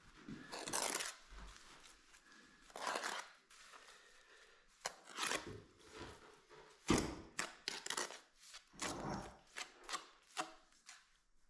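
Steel mason's trowel scraping wet mortar across a fieldstone, buttering it before it is set: a series of short, gritty scrapes that come closer together in the second half.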